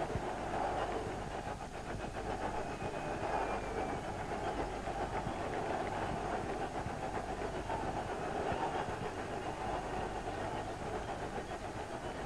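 Stadium crowd noise, a steady roar of many voices with small swells, on an old television match recording with a faint low hum beneath it.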